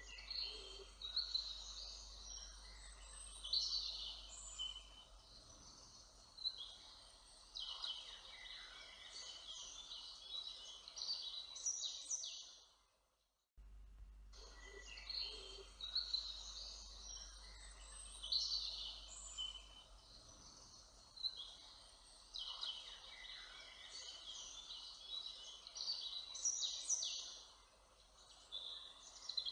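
Woodland songbirds singing, many short overlapping phrases and calls over a faint hiss. The same stretch of about fourteen seconds plays twice, with a brief dropout between.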